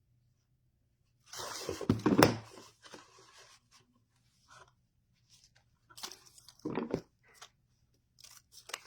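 Ribbon being handled and looped: rustling and crinkling, in a loud burst about two seconds in and a shorter one around seven seconds, with a few small clicks near the end.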